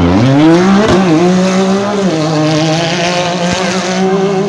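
Off-road 4x4 engine revving hard: the pitch drops right at the start, climbs back within about half a second, then holds high with small rises and falls.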